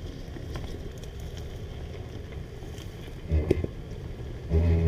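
Toyota 4Runner engine running low and steady as the SUV crawls over rocks, surging briefly with throttle about three and a half seconds in and rising again near the end.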